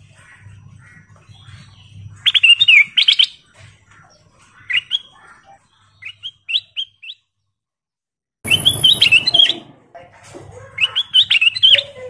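Ruby-throated bulbul (golden bulbul) singing in short, lively phrases of quick chirping notes, about five bursts with pauses between them, the loudest two near the end.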